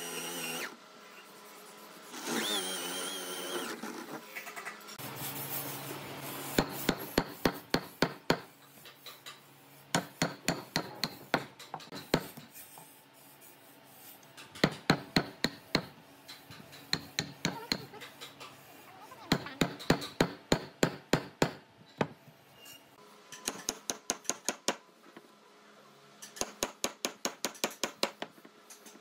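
A wooden mallet strikes a steel chisel driven into a hardwood beam, chopping out a mortise between drilled holes. The sharp knocks come several a second, in runs of one to two seconds with short pauses between. An electric drill whines briefly in the first few seconds.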